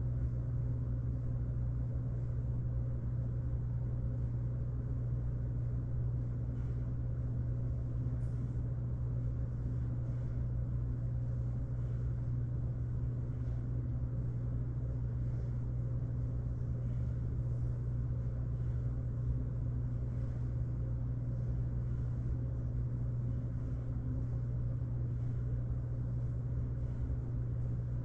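Steady low mechanical hum, unchanging in level and pitch.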